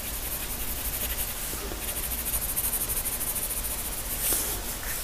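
Graphite pencil hatching on drawing paper: quick, even back-and-forth strokes making a soft scratchy rasp, with a heavier stroke a little after four seconds.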